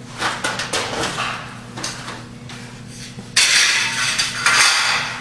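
Old sheet-metal ballast cover from a fluorescent strip fixture being handled and discarded: light clanks and knocks, then a loud metallic clatter lasting about a second and a half near the end.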